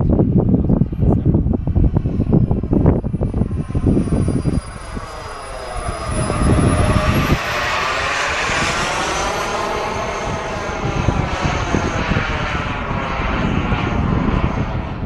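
Radio-controlled model jet flying past, its high whine swelling about halfway through with a sweeping, phasing sound as it passes. Wind buffets the microphone in the first few seconds.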